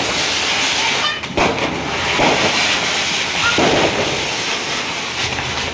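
Steady, loud hissing, like a Diwali firework fountain (anar) spraying sparks.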